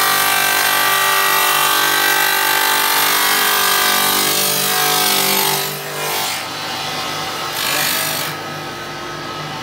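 Stone cutting machine working stone, loud with a high steady whine. A little past halfway it drops to a quieter running sound with two brief surges.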